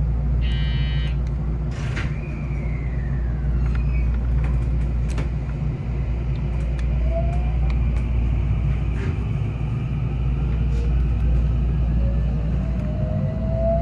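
223 series 2500-number electric train pulling away under power over a steady low rumble. Its underfloor Toshiba IGBT-VVVF inverter whines, rising in pitch as it accelerates, about halfway through and again near the end. A short electronic tone sounds about half a second in.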